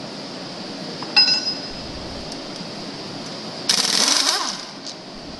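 A pneumatic impact wrench runs for about a second near the end, backing out a screw on the clutch's air tube holding plate. Earlier there is a single sharp, ringing metallic clink, over a steady hum.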